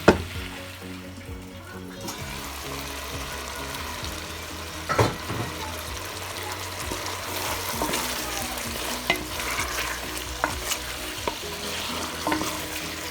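Chicken sizzling in a frying pan as it is stirred, with the utensil knocking against the pan at the start and again about five seconds in, and smaller scrapes and clicks later. Soft background music plays underneath.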